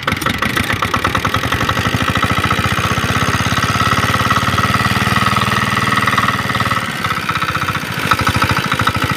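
Small hopper-cooled single-cylinder diesel engine running with a steady, rapid knock of its firing strokes, driving a water pump on a tube well. The sound dips briefly about seven seconds in, then comes back as the pump delivers water.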